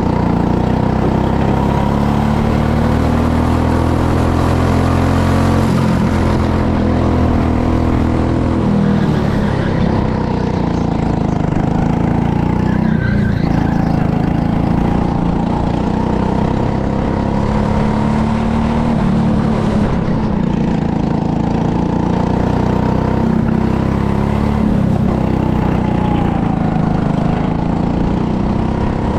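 Go-kart engine heard from the driver's seat, running hard the whole time, its pitch climbing and dropping as the kart speeds up and slows.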